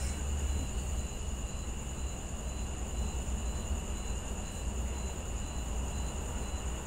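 Room tone in a pause of speech: a steady low hum with a thin, steady high-pitched whine over it, and a faint high tone pulsing at an even pace.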